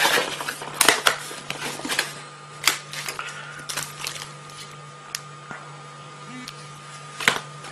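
Cardboard phone box and its lid being pushed shut and handled on a table, then a handset picked up: a few sharp taps and clicks, the loudest at the start, about a second in and near the end, with quieter fumbling between them.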